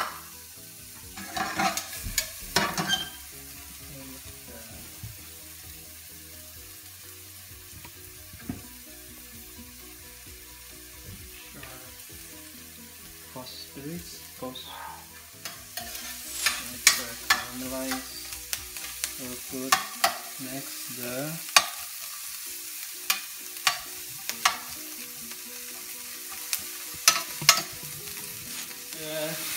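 Sliced shallots sizzling in hot oil in a stainless steel skillet as they caramelize, a steady frying hiss. A spatula scrapes and taps against the pan in a burst a second or two in and again repeatedly through the second half.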